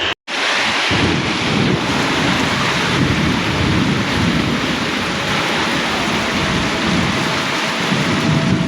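Steady heavy rain hiss with a low, uneven rumble underneath. The sound cuts out completely for a moment near the start.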